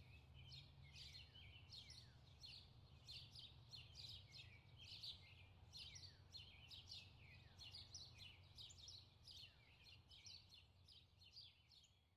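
Faint birdsong ambience: many small birds chirping over a low steady hum, fading out near the end.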